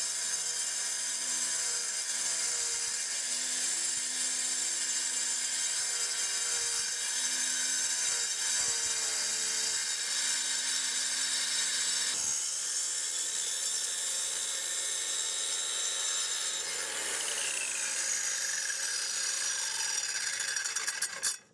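Circular saw with a diamond blade cutting through a granite countertop slab: a steady high-pitched grinding whine. Near the end its pitch falls away and the sound stops.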